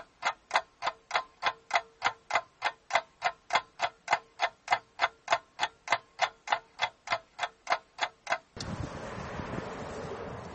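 Steady, even ticking, about three ticks a second, with a faint steady tone beneath. It cuts off abruptly near the end, giving way to a plain background hiss.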